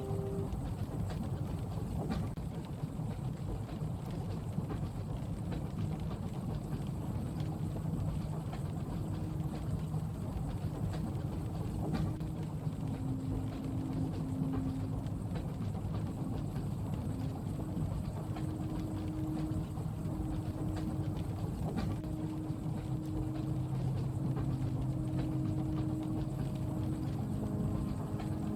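Steady low rumble of a moving train carriage, with a faint hum that comes and goes and a soft click about every ten seconds.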